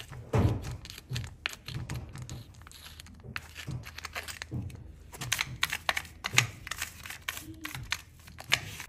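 Stiff-bristled hoof brush scrubbing the sole of a shod horse's hoof: irregular dry scratching strokes of bristles against packed dirt and the horseshoe.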